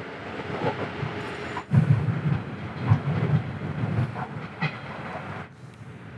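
KiHa 110-series diesel railcar pulling away from a station: its diesel engine working under load, with a few sharp knocks from the wheels over rail joints, fading a little before the end.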